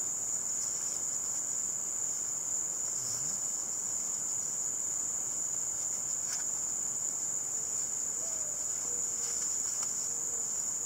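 Steady high-pitched insect chorus that does not let up. Under it, faint rustling and a couple of light clicks as a camp chair's fabric seat is worked over its metal pole frame.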